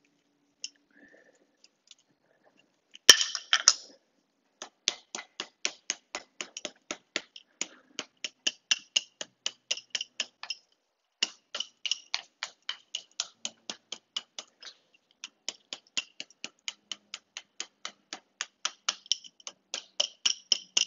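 Small hammer tapping a wire sculpture, a quick run of light, sharp metallic taps at about three to four a second with two short pauses, after a louder clatter about three seconds in. The blows knock loose, baggy wire strands into place to shape and tighten the figure.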